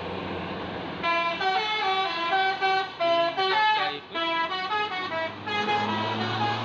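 Tourist bus's basuri horn, a multi-note musical air horn, playing a melody of short held notes starting about a second in, with two brief breaks, over the steady drone of the bus engine.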